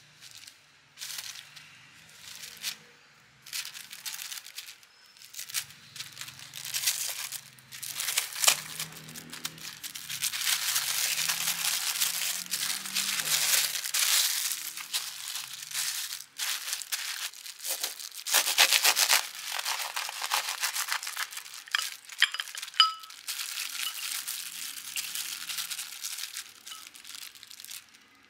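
Clear plastic sandwich wrap crinkling and rustling in irregular bursts as hands fold it tightly around a burger.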